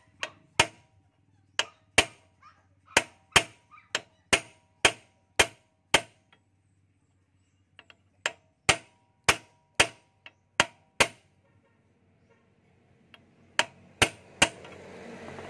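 Hammer tapping a steel drift punch to drive the axle into the new front hub bearing of a Bajaj RE three-wheeler: sharp metallic blows, about two a second, in three runs with short pauses between.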